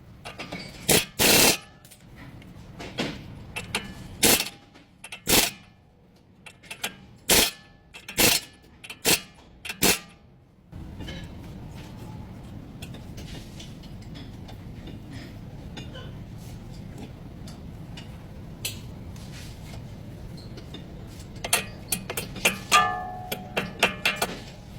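About a dozen sharp metal strikes, like hammer blows, roughly a second apart over the first ten seconds. A steady low hum follows, then a quick run of lighter metallic clinks near the end.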